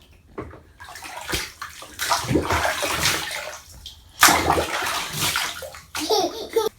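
Water sloshing and splashing in a bathtub in uneven surges, loudest about two seconds in and again about four seconds in.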